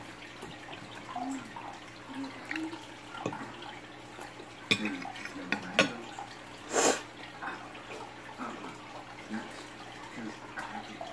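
Quiet room with a steady low hum, a few light clicks and taps from hands fiddling with small things, and one short breathy hiss about seven seconds in.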